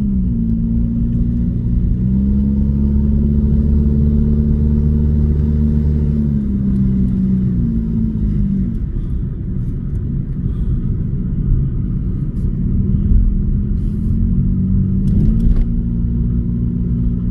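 An engine running with a steady low drone; its pitch drops about halfway through and rises again near the end, as with a change of speed.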